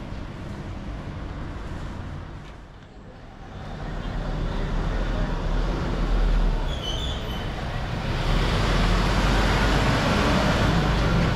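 Road traffic noise: a deep rumble and hiss of motor vehicles that swells from about four seconds in and stays loud, with a brief high squeak about seven seconds in.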